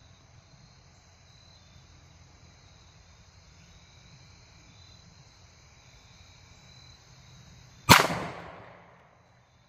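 One 10mm pistol shot from a 5-inch Colt Delta Elite 1911 firing PMC Bronze 170-grain jacketed hollow points, about eight seconds in. Its echo dies away over about a second.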